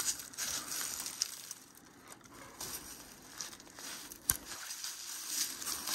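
Footsteps crunching and rustling on dry ground, with one sharp click about four seconds in.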